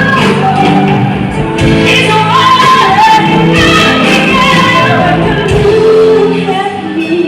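Music: a woman singing a pop song over full band backing.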